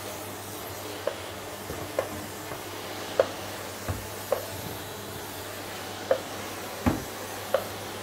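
Vacuum cleaner running steadily with a low hum and hiss as its floor head is pushed over a wooden floor. Short sharp clicks come about once a second, with a couple of duller thumps.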